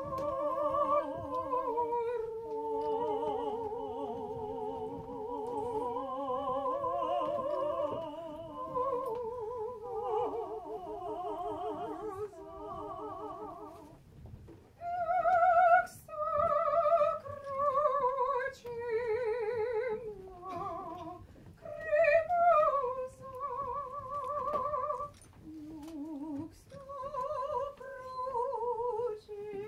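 Voices singing long, slow notes with strong vibrato, two or three parts in harmony at first. About halfway through, a single voice takes over, louder, in shorter phrases with short breaks between them.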